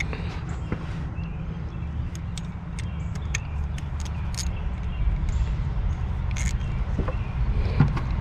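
Scattered light clicks and taps of a hand tool on metal as the expansion valve's Allen bolts are tightened, over a steady low rumble.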